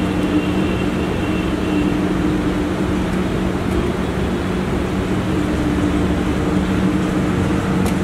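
Steady background machine hum: a constant low drone under an even rushing noise, unchanging throughout.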